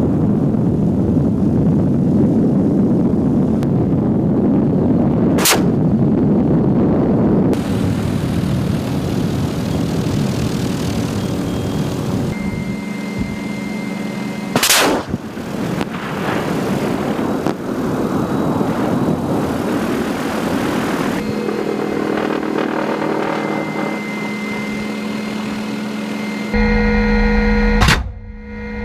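MD 530F helicopter's engine and rotor noise, with three sharp bangs of weapons fire: about five seconds in, midway (the loudest), and near the end.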